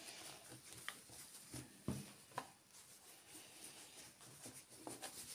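Faint rustling and a few light taps of a printed cross-stitch canvas being folded and handled on a tabletop.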